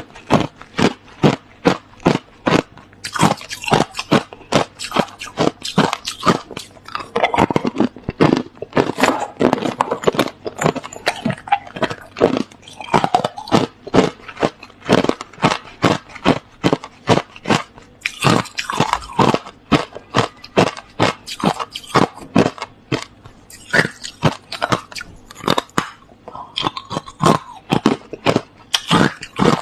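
Hard, clear crushed ice being bitten and chewed close to the microphone: a steady run of sharp crunches, about three a second, with thicker crackling stretches as mouthfuls break up.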